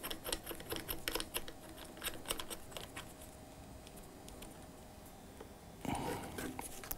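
Faint small clicks and scrapes of a metal ball head being screwed into a camera's tripod socket, thickest in the first three seconds. A short, louder handling noise about six seconds in.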